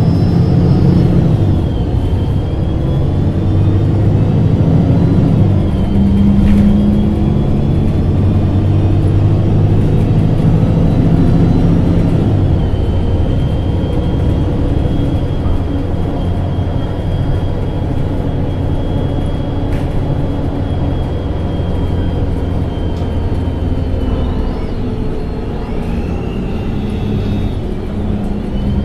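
MAN NG273 T4 LPG-fuelled city bus running under way: a steady engine drone, fuller over the first twelve seconds, with a thin high whine that dips about twelve seconds in and climbs again near the end.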